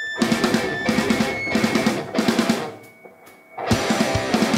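Metal band playing live, led by a drum kit pounding a fast rhythmic pattern with distorted guitars. About three seconds in, the band stops for about a second while a thin ringing tone holds. It then crashes back in with hard kick-drum hits.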